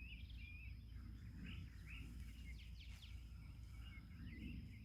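Songbirds chirping and twittering, with many short calls, over a faint low rumble of background noise; a few brief rustles about two to three seconds in.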